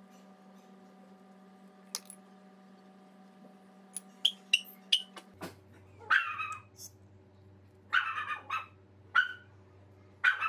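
A dog yipping and barking in short bursts, several times from about four seconds in, over a steady low hum.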